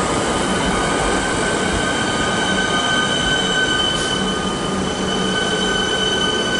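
Metro Trains Melbourne suburban electric train moving slowly along a curved platform track, its wheels squealing in several steady, high-pitched tones over the rumble of the cars.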